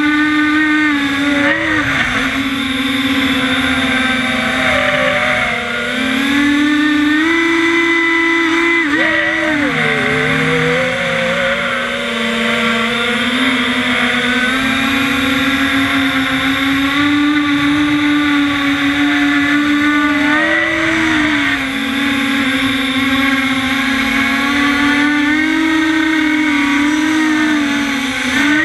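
FPV quadcopter's brushless motors and propellers whining, heard from the GoPro on the quad's own frame. The pitch rises and falls with the throttle: it climbs about six seconds in, dips sharply about ten seconds in and again about twenty-one seconds in.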